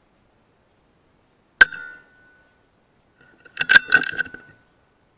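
A single sharp shot from an S200 PCP air rifle about a second and a half in, with a short ring after it. About two seconds later comes a quick run of metallic clicks as the bolt is cycled to load the next pellet.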